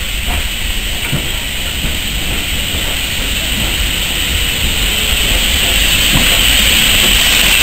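Approaching steam locomotive, its steam hiss and low rumble growing steadily louder, with a few scattered knocks.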